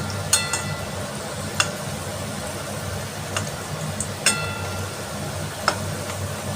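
Thekua deep-frying in hot oil in a kadai, a steady sizzle over a low hum. A metal spoon clinks against the pan four times, each clink ringing briefly.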